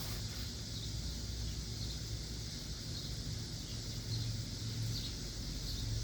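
Quiet outdoor background: a steady high insect drone over a low hum.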